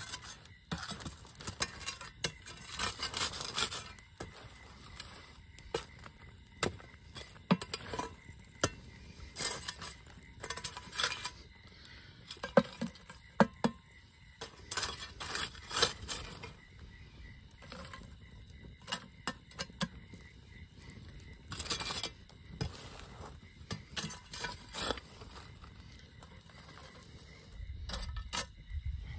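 A small metal shovel scraping and scooping hot coals out of a campfire and tipping them onto the lid of a cast-iron camp oven, with irregular scrapes, clinks and knocks of metal on metal.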